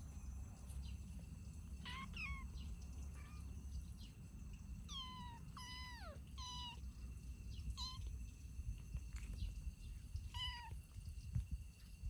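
Kittens mewing: about eight short, high mews, each falling in pitch, some close together in pairs.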